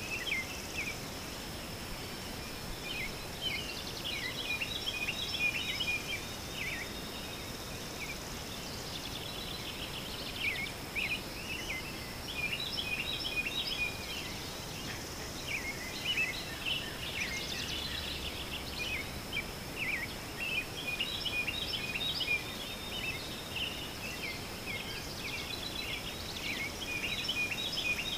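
Songbirds chirping and singing in many short, repeated phrases, over a steady thin high-pitched tone.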